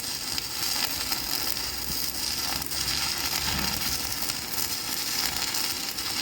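Stick-welding arc crackling and sizzling steadily as a 3.2 mm E7018 electrode burns at about 100 amps, a setting the welders find a bit strong.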